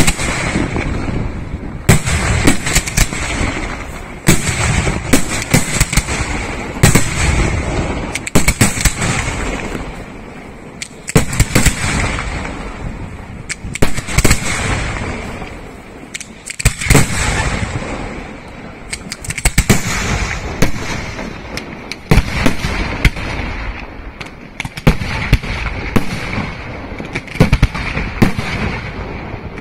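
Aerial firework shells bursting one after another: dozens of sharp booms at irregular spacing, often in quick pairs or clusters, each trailing off in a rumbling echo.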